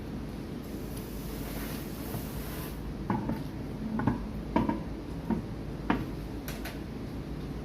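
A handful of sharp knocks and clunks, about five or six within three seconds, from parts or tools being handled, over a steady background hum.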